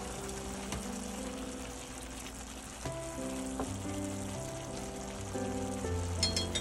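Food sizzling as it fries in a pan, under background music.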